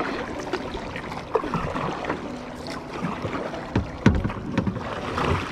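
Kayak paddle strokes in calm water: the blades dip and splash irregularly, with drips and a few sharp knocks of the paddle.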